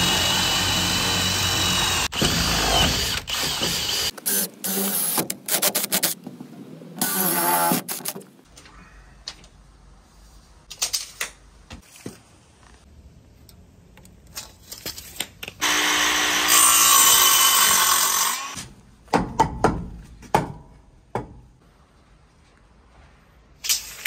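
Cordless drill with a long wood bit boring through a timber wall stud, running hard with a motor whine for about four seconds, then in shorter bursts. Later a mitre saw cuts through a length of timber for about two seconds, followed by a few clicks and knocks.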